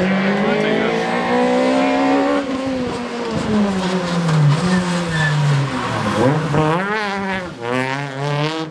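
Peugeot 208 rally car engine at full throttle, the revs climbing for about two seconds and then falling as it brakes. From about six seconds in, the revs rise and drop several times in quick succession as it works through a tight corner and passes close by.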